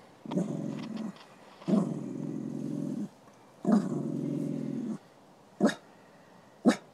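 A dog growling at a greyhound: three long low growls, each with a sharp start, then two short barks near the end.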